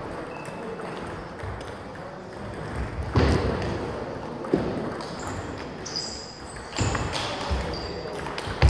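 Table tennis balls clicking off bats and tables during rallies: a handful of sharp, irregular knocks a second or so apart, the loudest near the end.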